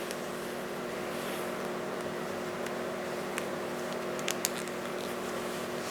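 Steady machine hum with a few light clicks about three and four seconds in, as the links of a twist-lock V-belt are worked apart by hand.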